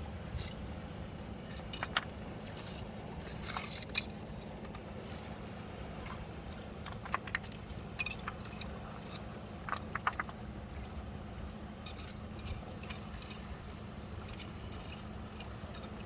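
Seashore ambience: a steady low rumble with scattered clicks and rattles throughout.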